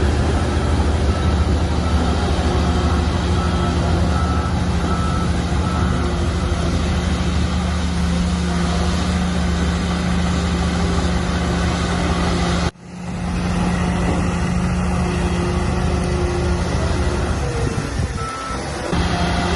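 Heavy diesel earthmoving machinery running steadily under load, with a reversing alarm beeping evenly for the first several seconds. The sound cuts out for an instant about two-thirds of the way through, then resumes.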